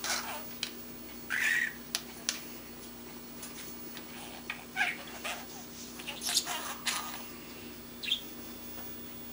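Young budgerigar babbling in short, scattered chirps and squawks, with a quieter spell in the middle. This is the chatter of a baby budgie learning to talk.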